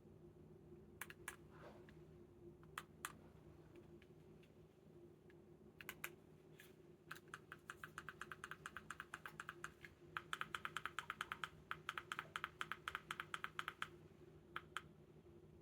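Small plastic buttons or keys clicking: a few separate presses, then a long run of quick, even clicks, about five a second, from about seven to fourteen seconds in. A faint steady hum lies underneath.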